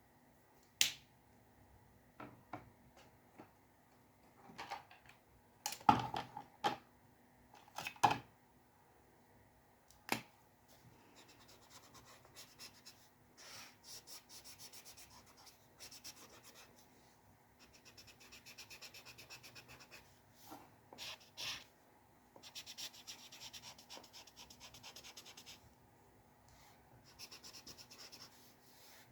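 A drawing tool scratching on paper in runs of quick, rapid hatching strokes, after a few light taps and knocks in the first several seconds.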